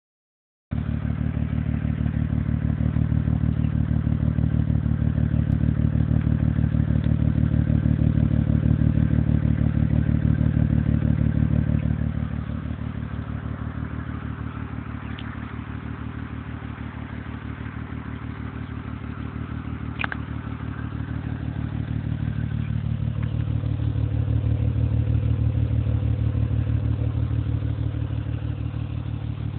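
2005 Acura TL's 3.2-litre V6 idling with a lumpy, pulsing exhaust note like a cammed V8, which the owner puts down to a misfire at idle. About 12 seconds in the exhaust note drops and a ticking valvetrain clatter comes forward, which the owner calls loud valve noise, before the exhaust grows louder again near the end.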